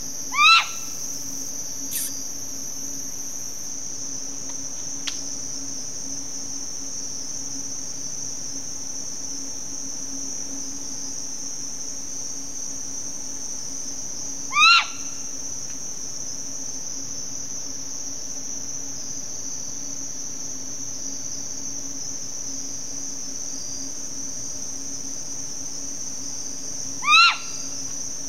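Stygian owl giving three short, sharp calls about 13 seconds apart, each a quick note that rises then falls, over a steady high-pitched chorus of crickets.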